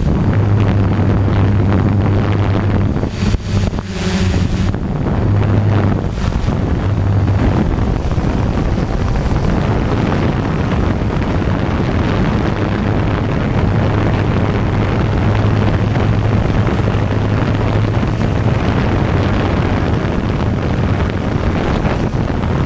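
RC multirotor drone's electric motors and propellers humming steadily, heard from its onboard camera, with wind buffeting the microphone. The hum briefly dips about three seconds in, then holds steady.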